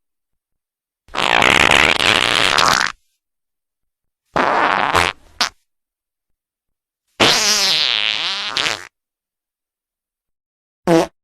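Loud fart sound effects, one after another with dead silence between them: a long fart about a second in, a shorter one in the middle followed by a quick pop, another long one with a wavering pitch, and a very short blip near the end.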